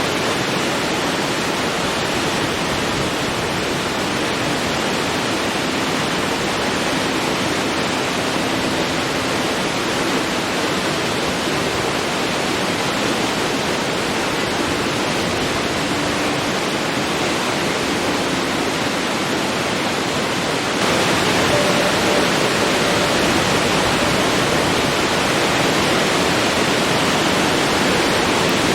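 Forest waterfall: a steady rush of falling and splashing water, a little louder from about two-thirds of the way through.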